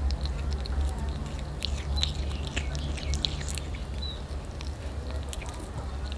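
A kitten chewing and tearing at raw chicken: irregular sharp clicks and smacks of teeth and mouth on the meat, over a steady low hum, with a few short high chirps.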